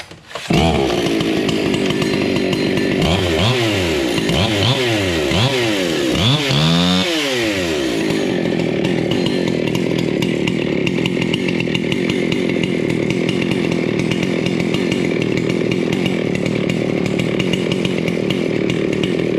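Husqvarna 61 two-stroke chainsaw with a custom exhaust starting up about half a second in, revved in a run of quick blips, then settling into steady running.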